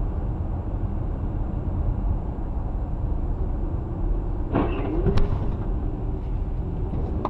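Steady road and engine noise heard from inside a moving car, picked up by a dashcam. A short, louder sound with a brief wavering tone comes about four and a half seconds in, followed by a faint click.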